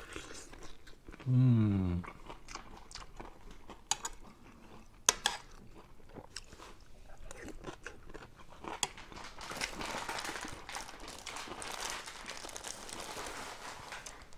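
Close-up crunching and chewing of a fried chicken drumstick being eaten, with a short hummed "mm" about a second and a half in and a few sharp clicks scattered through.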